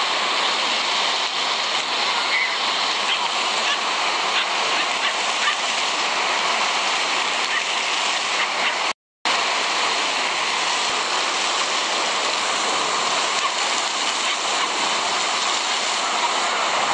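Water jets of a floor-level splash-pad fountain spraying up and splashing down onto wet paving: a steady, even rush of falling water. It cuts out completely for a moment about nine seconds in, then resumes the same.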